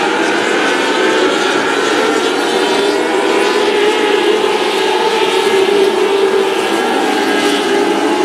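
Small winged open-wheel race cars running laps on a dirt oval, their engines held at high revs. The engine notes overlap in a steady, high-pitched drone that wavers slightly as the cars pass through the turns.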